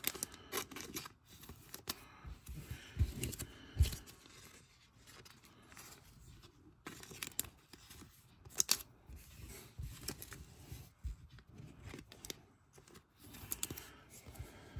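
Cardboard trading cards being handled and shuffled, sliding and flicking against one another in a series of irregular scrapes and light clicks.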